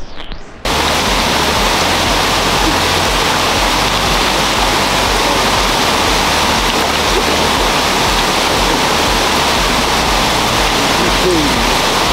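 Loud, steady rush of a waterfall's falling water, cutting in abruptly about a second in.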